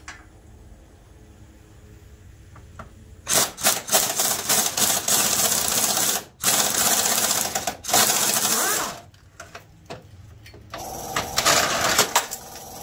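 Impact wrench hammering bolts loose in three bursts, the longest about three seconds, followed near the end by a few metal clanks as the freed lower front bar comes down.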